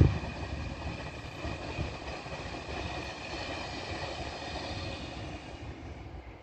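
Passenger train running past on the main line, its rumble loudest at first and fading steadily as the train moves away, with a steady high whine over it.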